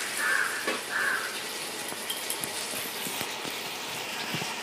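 Thick tamarind-ginger pickle mixture sizzling and bubbling in a non-stick frying pan, reduced nearly to its thick finish, while a spatula stirs salt through it with a few quick strokes in the first second and light knocks against the pan later.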